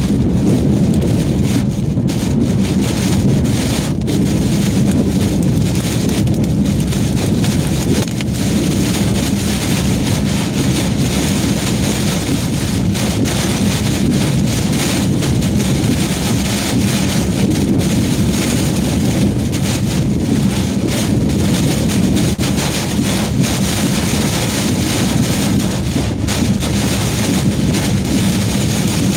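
Hurricane-force eyewall wind and heavy rain battering a truck, heard from inside the cab: a loud, continuous rush of wind with rain hitting the windshield.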